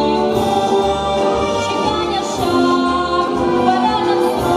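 A teenage girl sings a solo pop vocal into a handheld microphone over a backing track with a steady beat, holding long notes.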